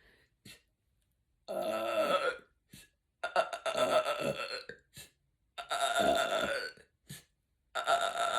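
A woman belching four times in a row, each belch about a second long, with brief clicks between them; the last is still going at the end. The burps are brought up by the gas of carbonated sparkling water she has been drinking.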